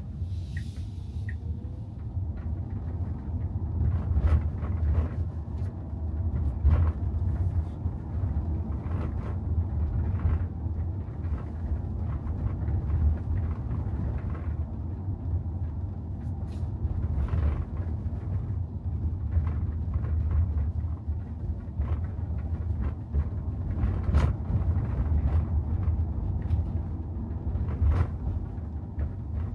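Battery-electric Tesla Model Y driving, with no engine note: a steady low road and tyre rumble, broken by a few short knocks.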